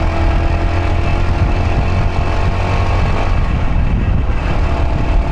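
Yamaha YBR125's single-cylinder four-stroke engine running steadily while riding, under a heavy low rumble.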